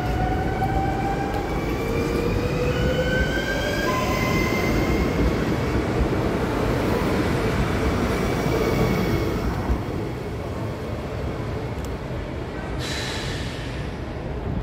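NS ICNG electric intercity train (Alstom Coradia Stream) pulling away, its traction drive whining in a series of rising tones as it gathers speed, over steady wheel and rail rumble. Near the end the sound changes abruptly to a quieter rumble with a short hiss.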